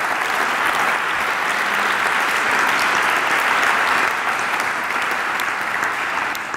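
An audience applauding: many hands clapping together in a steady, dense patter.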